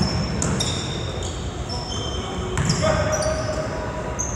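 Basketball being played on a hardwood gym floor: sneakers squeak in many short, high chirps, with a ball bouncing and a few sharp knocks.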